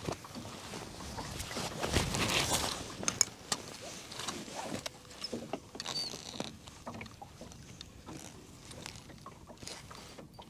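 Choppy water slapping and lapping against the hull of a small boat, swelling louder for a moment about two seconds in, with a scatter of small knocks and clicks.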